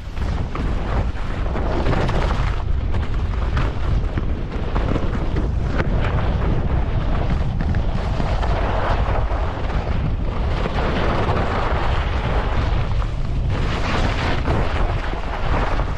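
Wind buffeting the GoPro HERO10's microphone during a fast ski descent, a heavy low rumble, over the steady hiss and scrape of skis on snow that swells and fades every few seconds.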